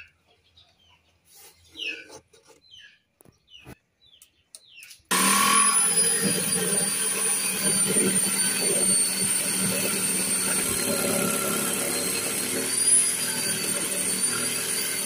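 Handheld electric jigsaw switching on suddenly about five seconds in and running steadily as it cuts into a thick wooden plank, a high motor whine over the sawing noise, the whine rising briefly near the end.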